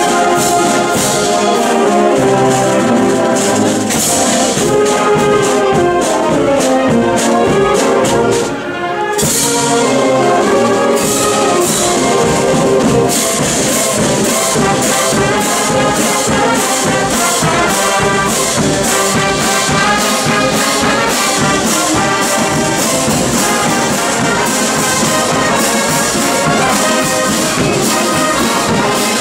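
Wind band playing a pasodoble: brass with trumpets and trombones over percussion that keeps a steady beat. The band breaks off for a moment about eight and a half seconds in, then comes back in.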